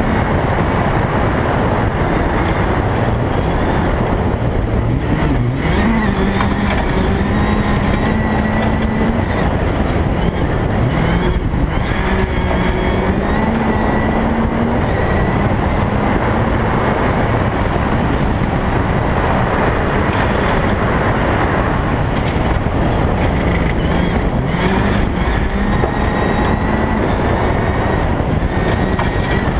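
Rally car engine running hard at speed, its pitch rising and falling again and again with the revs, over a constant rush of tyre, gravel and wind noise.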